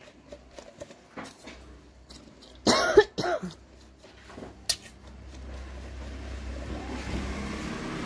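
A person coughs about three seconds in, the loudest sound, amid faint clicks of a steel mixer jar being handled and its coupling turned by hand. A low steady rumble builds over the last few seconds.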